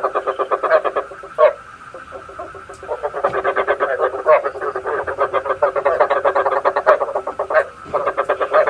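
Frogs croaking, used as a lure call for trapping frogs at night: rapid trains of repeated croaking pulses, many a second, with a short lull between about one and three seconds in.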